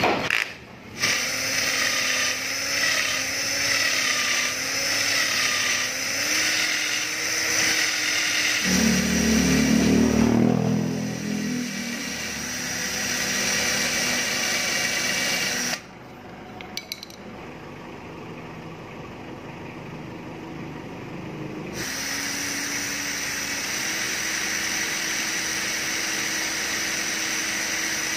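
Cordless drill running at steady speed, spinning a rivet nail in its chuck while a flat file and then sandpaper are held against the turning metal to shape it into a vacuum-carburettor needle. About a third of the way in there is a louder, rough grinding stretch. Just past halfway the sound drops off suddenly, then the steady motor hum comes back.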